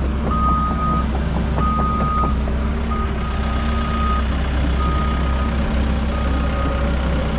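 Backup alarm on a diesel earthmoving machine, one long beep about every second and a quarter, over the steady rumble of its diesel engine as it reverses.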